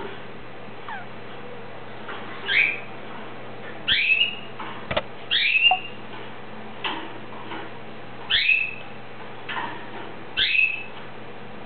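Caged canary giving short whistled notes that slide downward in pitch, repeated every second or two, about seven times.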